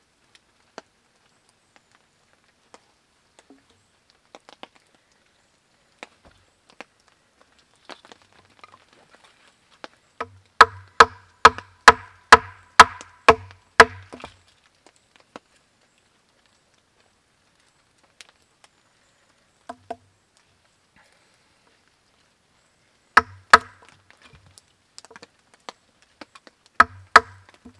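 Batoning: a wooden baton strikes the spine of a knife to split a short round of wood. There are sharp knocks with a brief metallic ring, a quick run of about nine blows near the middle, then two more pairs later, with fainter taps between.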